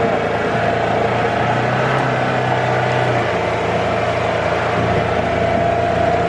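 Engine of a Polaris Ranger side-by-side running steadily, heard from the seat.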